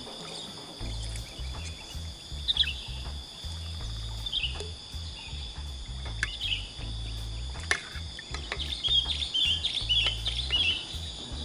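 Steady high insect drone with birds chirping on and off, the chirps coming thick and fast from about nine seconds in. A few sharp clicks and an uneven low rumble lie underneath.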